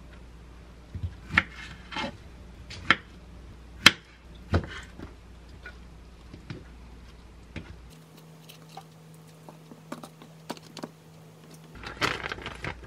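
Kitchen knife slicing fresh figs on a wooden cutting board, with several sharp taps of the blade on the wood in the first few seconds. Near the end, a plastic food pouch rustles as it is handled.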